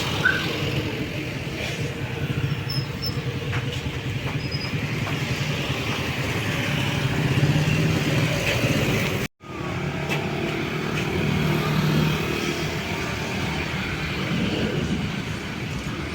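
Steady engine noise from vehicles, with a low hum, cutting out for an instant a little after halfway before carrying on.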